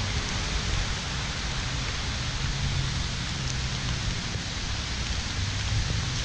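Steady rain hissing on wet paving and foliage, with wind buffeting the microphone as a low rumble underneath.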